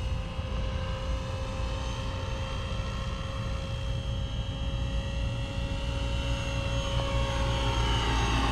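Radio-controlled Trex 700 helicopter in a Bell Jet Ranger scale body flying: a steady whine from its rotor and drivetrain over a low rumble, the pitch sagging slightly in the middle and rising again.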